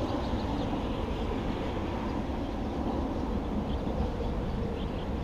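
Steady low rumble of highway traffic.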